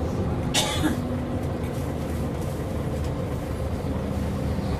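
Scania L94UB single-deck bus's diesel engine and drivetrain running as the bus drives along, heard from inside the passenger saloon. A short hiss comes about half a second in.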